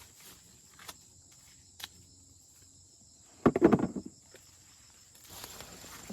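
Dry plant material crackling and rustling, like dry corn stalks and husks being handled. There are a few faint clicks, then a loud short burst of crackling about halfway through, and steady rustling near the end.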